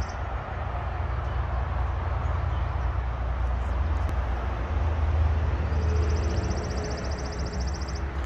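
Steady low outdoor rumble under a general hiss. A fine, rapid high buzz joins about six seconds in and stops shortly before the end.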